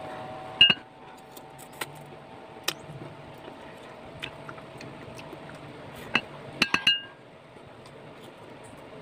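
A white ceramic bowl clinking as it is knocked while mango is dipped into it: one sharp clink about a second in, then a quick run of three or four clinks near the end, each ringing briefly.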